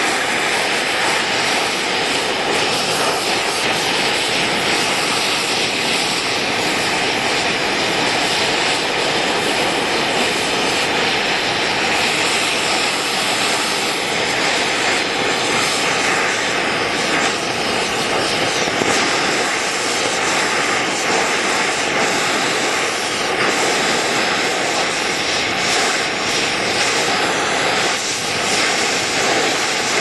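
Oxy-fuel torch flame hissing steadily while brazing a steel key strip.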